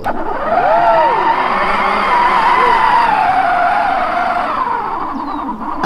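Battery-powered toy car's small electric motor whining as it drives up a slope, the pitch wavering up and down under load.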